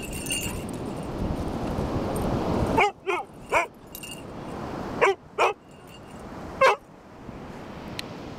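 Alaskan Malamute giving six short, falling barks: three in quick succession about three seconds in, two more a couple of seconds later, then one last one. Wind rushes on the microphone before the barks start.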